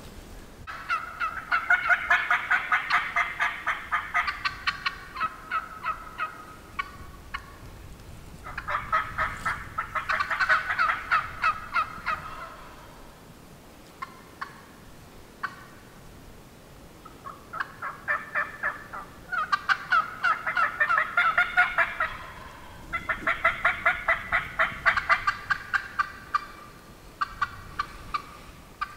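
Turkey calling: several long runs of rapid, evenly spaced yelping notes, each run lasting a few seconds, with short pauses between the runs.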